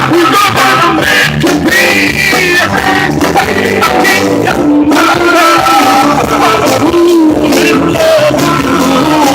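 Loud music with a singing voice over a full band, playing throughout.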